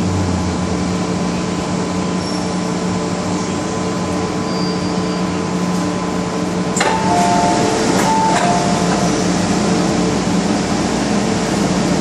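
MTR M-Train car interior: a steady hum of the car's motors and equipment, then about seven seconds in a click and the two-tone door chime alternating for about two seconds as the passenger doors are released and slide open at a station.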